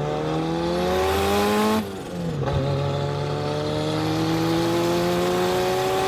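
Car engine accelerating, its pitch rising steadily. It breaks off briefly about two seconds in, then climbs again.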